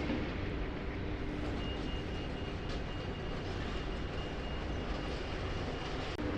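Diesel engine of a high-reach demolition excavator running with a steady low rumble. From about a second and a half in, a faint high-pitched beeping repeats until near the end, typical of a reversing alarm as the machine starts backing away.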